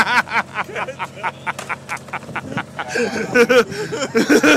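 Men laughing hard: rapid ha-ha-ha bursts, breaking into a stretch of breathy, clicking wheezes, then loud ha-ha bursts again about three seconds in.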